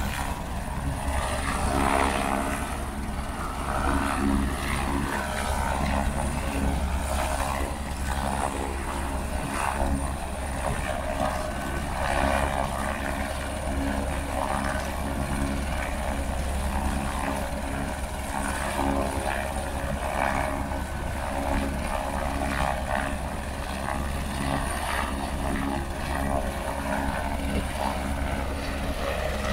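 Helicopter on the ground with its engine running and main rotor turning: a steady, unbroken running sound with a deep rumble and a constant mechanical tone.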